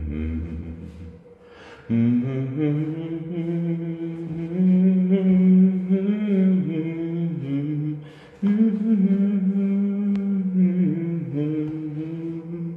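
A man humming a slow, wordless chorus melody in long held notes that glide up and down, with short pauses for breath about two seconds and eight seconds in.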